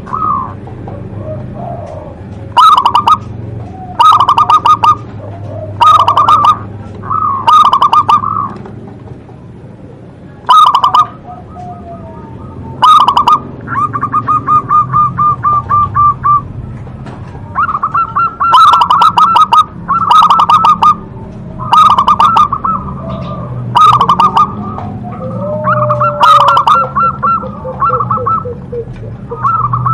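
Zebra dove (perkutut) cooing: loud, rapidly pulsed staccato phrases repeated about every two seconds, with a longer even trill partway through. A steady low hum runs underneath.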